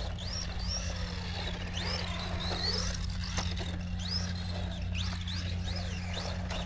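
Small RC truck's 2430-size 7200kV brushless motor on 2S whining, its pitch sweeping up and down again and again as the throttle is blipped, over a steady low hum.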